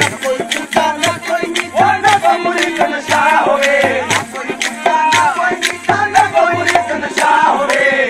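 Sindhi Sufi devotional song (kalam): a voice singing a wavering melodic line over a steady hand-drum beat.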